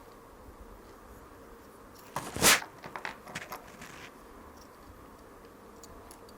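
Hand-handled small drone parts: a brief loud crunching scrape a little over two seconds in, then a few light clicks and taps.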